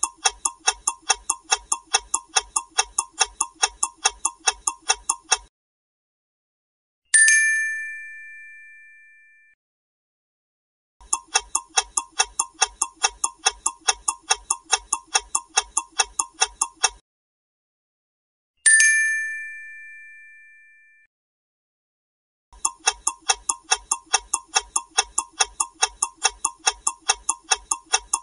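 Quiz countdown-timer sound effect: clock ticking at about four ticks a second in runs of about six seconds, broken twice by a single bright chime that rings out over about two seconds as the time runs out.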